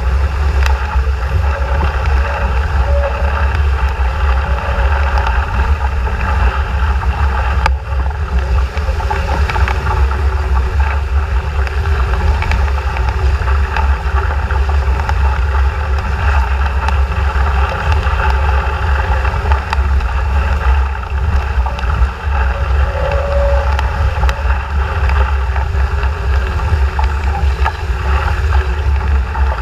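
Heavy, steady wind noise on the microphone over the rush of water and spray along an RS400 sailing dinghy's hull as it sails fast through choppy water.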